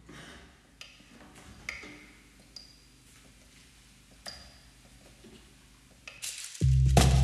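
Experimental music made from kitchen sounds: sparse clicks and short ringing pings over a faint low hum, then a loud bass-heavy beat with percussion comes in near the end.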